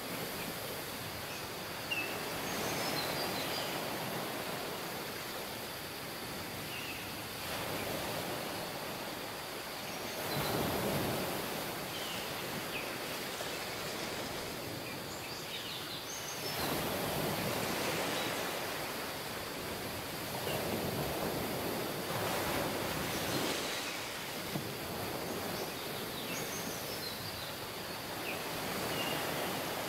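Ocean surf washing on a shore: a steady rush that swells and fades every few seconds, with faint short high chirps over it.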